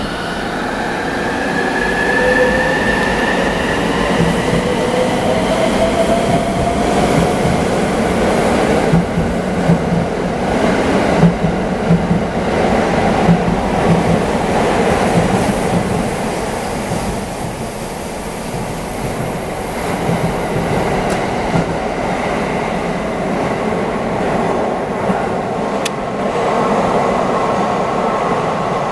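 JR West 683 series 4000 limited-express electric train pulling out and accelerating past: its traction motors whine, rising in pitch over the first few seconds, over a steady rolling rumble. Repeated clicks from the wheels over rail joints come in the middle, and a thin high squeal sounds for several seconds after.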